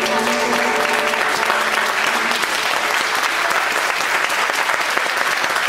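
Audience applauding steadily at the end of a song, with the last chord of the acoustic guitars and mandolins dying away under the clapping in the first second.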